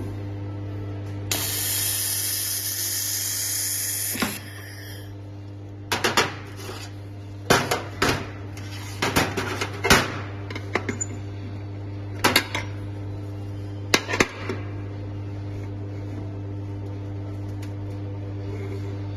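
Steady electrical hum of welding equipment. About a second in comes a hiss lasting about three seconds, then a run of sharp metallic knocks and clanks, some in quick pairs.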